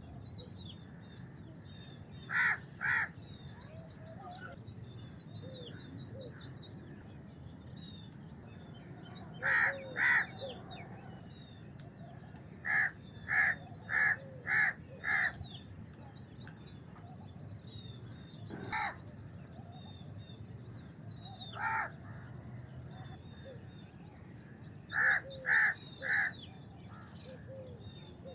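House crows cawing in short runs of one to five loud, harsh caws with pauses between. Small birds chirp steadily in the background.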